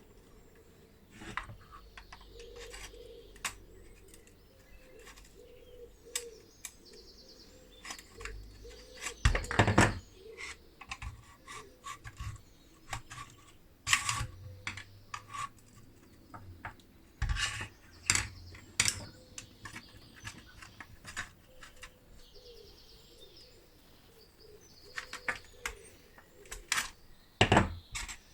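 Irregular clicks, taps and knocks of hand work on small parts, with several louder knocks spread through.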